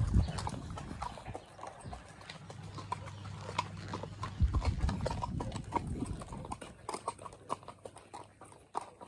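Hooves of two horses, one ridden and one led alongside, clip-clopping on a dirt track in an uneven patter of hoofbeats.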